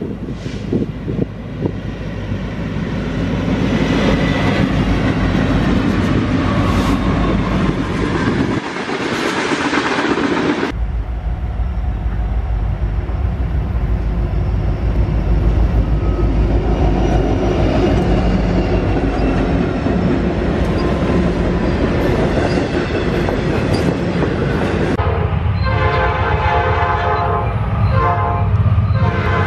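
Freight trains passing behind diesel locomotives, their engines running with a steady rumble and the wheels clicking over rail joints. Near the end a locomotive horn sounds a held chord of several notes.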